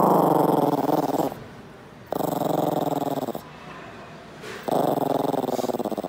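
Yorkshire terrier growling: three long, rumbling growls of about a second each, with short pauses between them.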